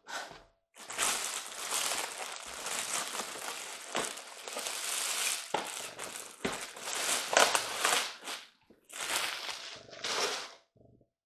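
Packaging of a boxed model train being handled and opened: steady crinkling and rustling with a few sharp knocks, breaking off briefly twice near the end.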